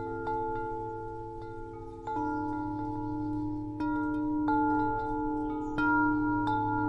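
Wind chimes ringing: tubes struck at irregular moments, about every one to two seconds, each note ringing on and overlapping the next, over a steady low hum.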